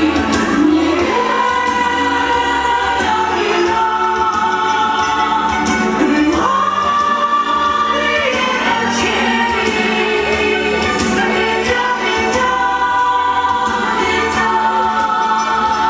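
A song sung with a choir-like sound of voices over instrumental backing, with long held notes.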